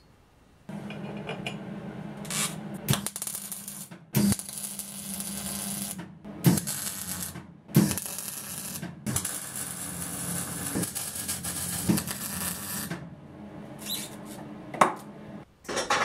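Electric arc welding on steel: a steady crackling hiss with a hum under it, in several short runs broken by brief pauses, starting about a second in.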